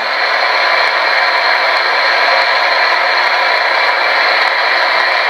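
Spirit box radio giving out a steady, loud hiss of static, with no voice coming through.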